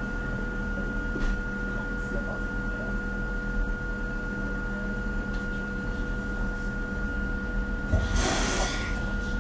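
Hakone Tozan Railway Moha 1 electric car standing still, its on-board equipment giving a steady hum with a thin high whine. About eight seconds in, a short burst of compressed air hisses out.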